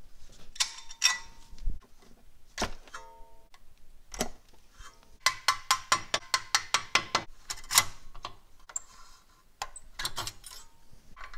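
Tools and brake parts being handled during a brake job: scattered metal knocks and clanks, and about five seconds in a run of quick, even clicks, about seven a second.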